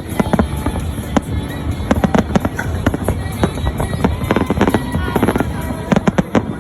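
Fireworks going off in many rapid, irregular bangs, with a dense cluster of loud bangs near the end, over music.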